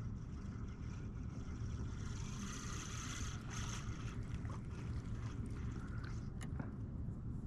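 Steady wind rumble on the microphone with water sloshing against a kayak's hull. A hissing swell comes about two to three seconds in, and a few light clicks come near the end.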